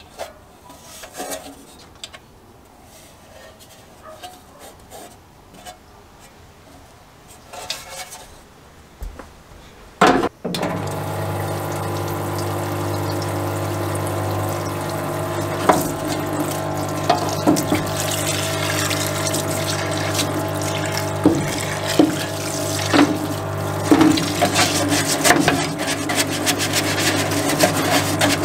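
A MAC AFRIC 90-litre parts washer. About ten seconds in, its electric pump switches on with a click and runs with a steady hum, while cleaning fluid pours from the flexible nozzle onto a metal mower part in the tub. The part is scrubbed with a bristle brush, with rubbing and sharp knocks over the flow. Before the pump starts, there are only light handling knocks.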